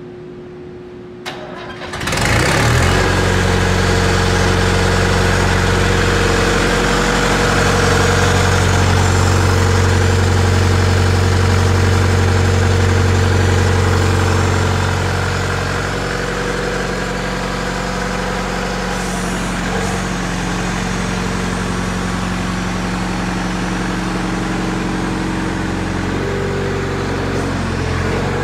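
A mining machine's diesel engine starts suddenly about two seconds in, just after a click, and then runs steadily at idle. About halfway through it settles a little lower and quieter.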